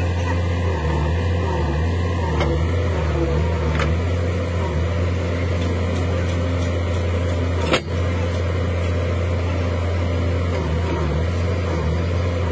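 Hitachi excavator's diesel engine running steadily, with a single sharp knock about two-thirds of the way through.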